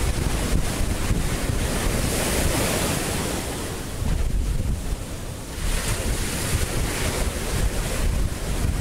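Ocean surf breaking and washing ashore, the hiss of the wash swelling twice, with wind buffeting the microphone.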